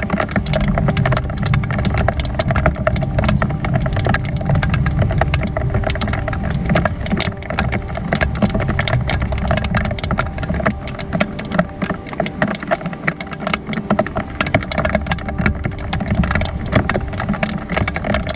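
Rain falling steadily, with many raindrops striking close by in a dense, irregular stream of sharp ticks over a steady low rumble.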